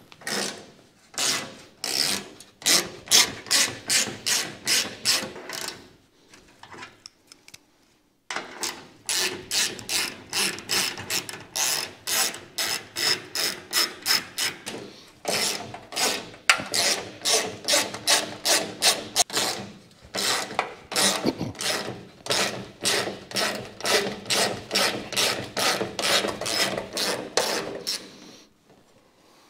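Craftsman hand ratchet clicking in quick, even runs, about three or four swings a second, as a socket backs off the chrome nuts and caps holding the sun visor. There is a short pause about six seconds in, then a long run that stops just before the end.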